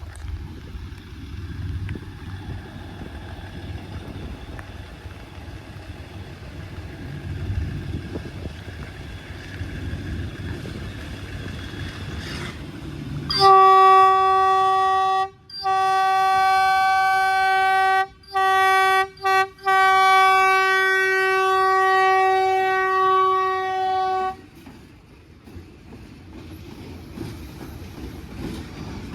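Pair of GE U10B diesel locomotives working up a grade with a low rumble; about 13 s in a locomotive horn sounds, loudly and on one pitch, in five blasts (long, long, two short, then a final long one of about five seconds), cutting off near the end and leaving the engine rumble.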